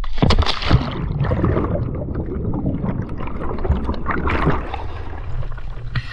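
Sea water splashing and bubbling around a freediver as she goes under with the camera. Near the end there is more splashing as she comes back up.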